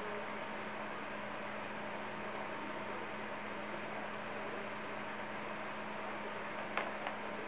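Steady low electrical hum with a hiss, with a couple of faint clicks near the end.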